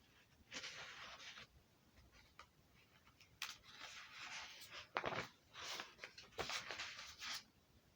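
Scratchy rustling or scraping noises in three bursts, with two sharp clicks about five and six and a half seconds in.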